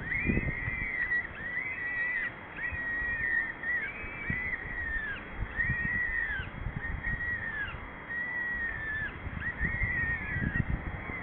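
Peregrine falcons calling at the nest during a feed: a continuous run of drawn-out, arching calls, about one a second, with soft low knocks underneath.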